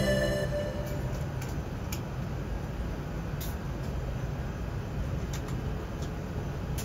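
Cabin noise inside an Airbus A380 taxiing: a steady low rumble, with a few faint clicks scattered through it. Music fades out in the first half second.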